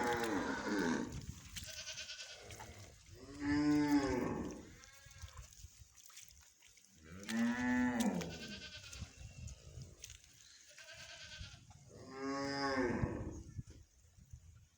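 Heifers mooing: four long, loud moos about four seconds apart, with fainter moos from other cattle in between.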